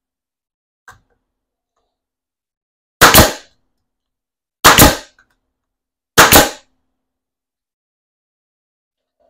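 Three loud, sharp bangs about a second and a half apart, each with a brief tail, after a faint click about a second in.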